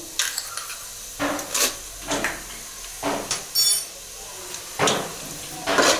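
A steel pot and spoon clatter as whole seeds and dal are added to oil for a tempering: several short knocks spread over a few seconds, one with a brief metallic ring about three and a half seconds in.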